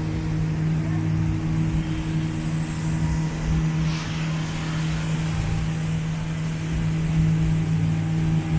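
Motorboat engine running at a steady, constant pitch as the boat cruises, with water and hull noise beneath it.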